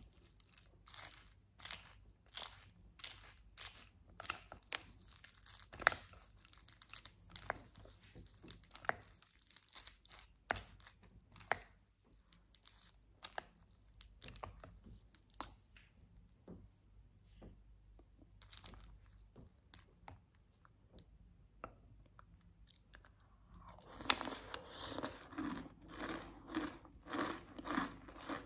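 Wooden spoon stirring and scooping chocolate cereal in chocolate milk in a glass bowl, a scatter of sharp clicks and crackles. About four seconds before the end, close-miked chewing of a mouthful of the crunchy cereal begins, crunching about twice a second.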